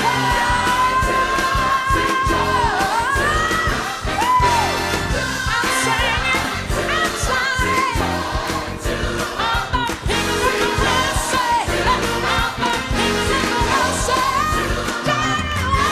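Pop-style song with a lead singer holding long notes and sliding between pitches over full accompaniment and a steady beat.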